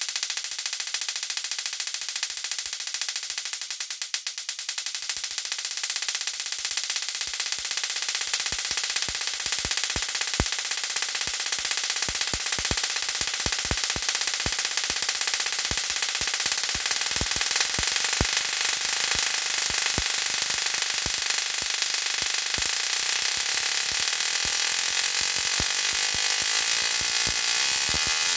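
Magnifier Tesla coil with a floating secondary firing: a steady, hissing buzz of spark streamers from its top terminal, with sharp crackles that come more and more often after the first several seconds.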